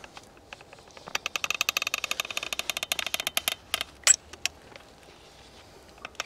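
Hand-operated sausage-type caulking gun being squeezed to lay a bead of adhesive: a fast run of clicks, about ten a second, for a couple of seconds, then a few single clicks.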